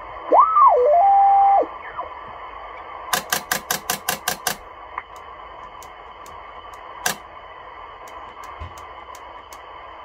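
Icom IC-720 HF transceiver receiving band hiss through its speaker. Near the start a whistle swoops up and down, then holds steady for about a second. A couple of seconds later comes a rapid run of about ten clicks, some seven a second, as the bands are stepped through, and one more click follows near the end.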